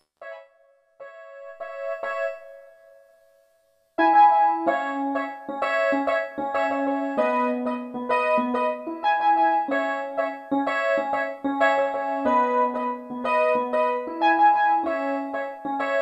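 Novation MiniNova synthesizer playing a piano-style patch. A few soft notes sound and die away, then about four seconds in a continuous run of chords and melody begins.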